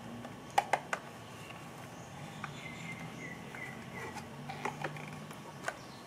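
Sharp plastic clicks and taps from a Hyundai Veloster folding side-mirror housing being handled and pressed: a quick cluster of three about half a second in, then a few more near the end.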